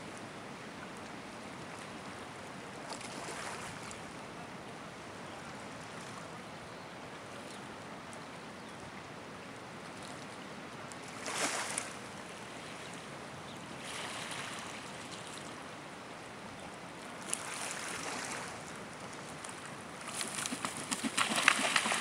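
Steady wash of small waves and wind at the water's edge. Near the end a great white pelican runs across the water to take off, its feet and wings slapping the surface in a rapid, loud series of splashes.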